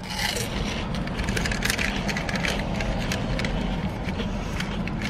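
Steady low hum of a car idling, heard inside the cabin, with close chewing and small crunches from a light, airy fried snack.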